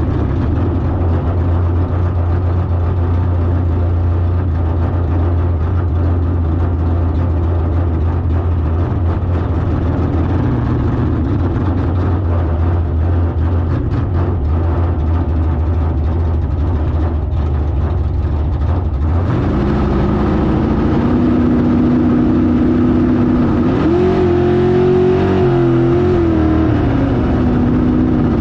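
Car engine idling with a low rumble, then a cut to an engine running whose pitch rises for a couple of seconds and falls back.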